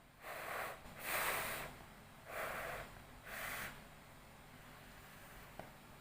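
A person breathing audibly, four breathy puffs about a second apart in the first four seconds.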